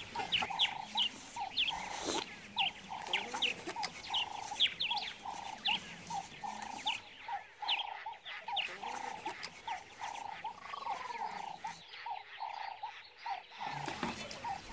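Small animals calling over and over in short chirping calls, a few each second, with no speech.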